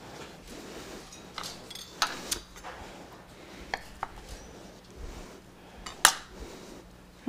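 Knife and kitchenware clicking and clinking against a wooden cutting board and dishes while an avocado is cut in half: a handful of separate sharp knocks, the sharpest about six seconds in.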